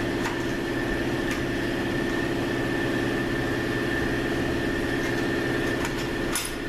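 Steady machine hum holding a constant pitch, with a few faint metal clicks, one a moment before the end.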